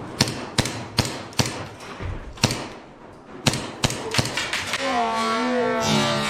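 Airsoft pistols firing, about nine sharp single shots spaced irregularly over the first four and a half seconds. Music comes in near the end.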